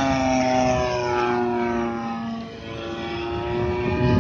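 20cc engine of a balsa RC model airplane running in flight. Its pitch drops in the first second and the sound fades about two and a half seconds in, then grows louder again near the end.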